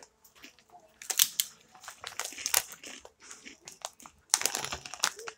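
Corn chips crunching as they are chewed, with the foil chip packet crinkling in the hand; a few sharp crackles, the loudest a cluster near the end.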